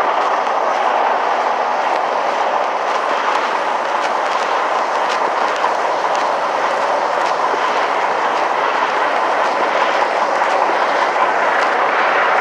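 Steady, unbroken engine noise from diesel semi-trucks idling at a truck-stop fuel island.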